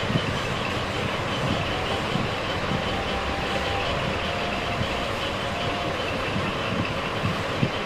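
Steady city street noise: a continuous wash of traffic with no single sound standing out.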